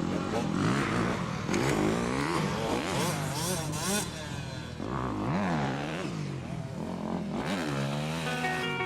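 Motocross motorcycle engine revving, its pitch rising and falling over and over as the throttle is opened and closed.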